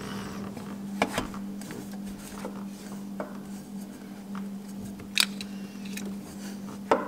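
Metal intake elbow being test-fitted by hand at the turbo inlet, with a few short sharp clinks and knocks as it is pushed and turned against the engine parts, the loudest about five seconds in and just before the end. A steady low hum runs underneath.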